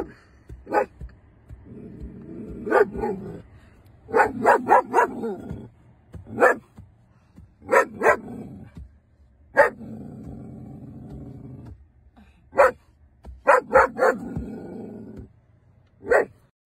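German Shepherd barking inside a car: single barks and quick runs of three or four, with stretches of low growling between them.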